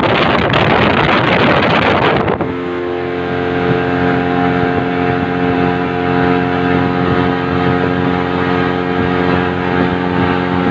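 1987 Johnson 140 V4 two-stroke outboard running at a steady speed on a runabout. For about the first two seconds a heavy rushing noise of wind and water covers it. The rushing then cuts off abruptly, leaving the engine's steady, even drone clear.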